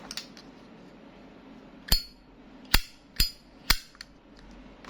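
Zippo Flat Sand 49453 brass windproof lighter's hinged lid being flicked open and snapped shut twice: four sharp metallic clicks, the first and third carrying a brief ringing ping.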